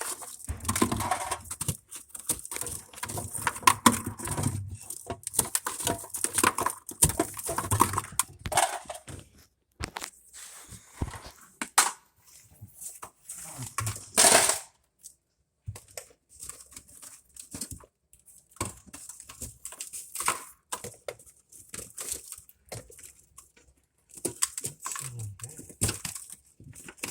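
Irregular clicks, knocks and rustling of hands working inside a refrigerator's freezer compartment, handling wiring and plastic parts, with a few brief pauses.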